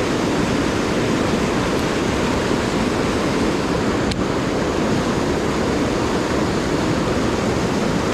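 Fast mountain stream rushing steadily over boulders in a whitewater cascade, an even, unbroken rush of water.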